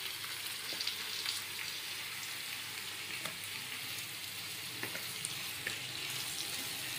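Oil sizzling steadily in a nonstick pan as marinated chicken pieces are tipped onto fried onions and stirred with a wooden spatula, with a few light knocks of the spatula against the pan.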